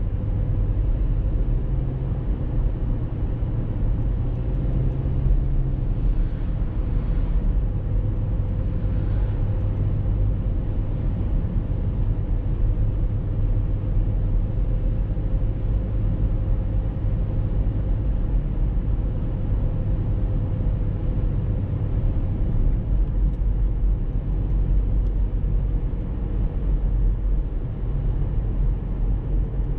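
Car driving steadily along a paved road: constant road and engine rumble with a thin, steady hum, heard from the moving car.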